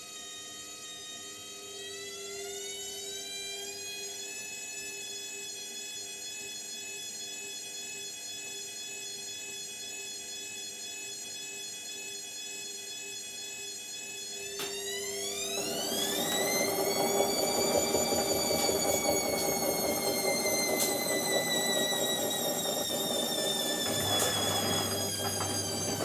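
Indesit front-loading washing machine's motor whining as the drum speeds up. The whine steps up in pitch about two seconds in, then climbs steeply around fifteen seconds in as a loud rush of drum noise joins, and afterwards eases slowly lower. A low rumble comes in near the end.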